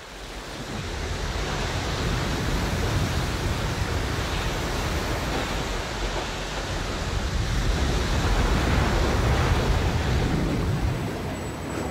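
Ocean surf breaking and washing in, a steady rushing that fades in over the first two seconds and swells twice, loudest a couple of seconds before the end.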